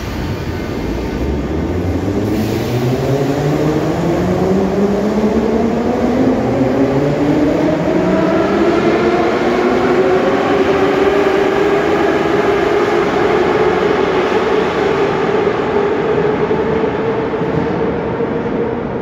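81-717/714 'Nomernoy' metro train pulling away from the platform: its traction motors whine in several tones that climb together as it accelerates from a standstill, then level off, over the steady rumble of wheels on rail.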